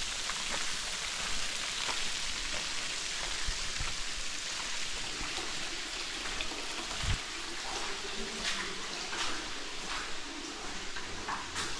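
Steady hiss of water, with scattered clicks and one low thump about seven seconds in.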